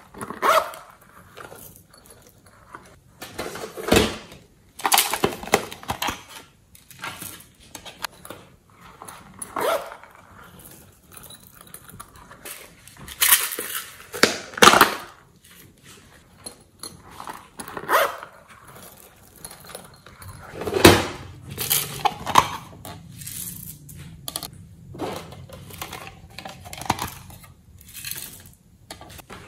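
Small plastic toy cases being handled, opened and tapped while glitter, sequins and foam beads are shaken out of them onto slime in a glass dish: irregular clicks, knocks and rattles with short pauses between them.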